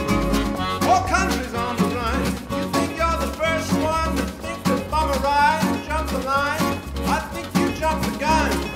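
Acoustic folk band playing an instrumental passage: accordion and acoustic guitars strumming over a bouncing bass line, with a melody line that slides between notes.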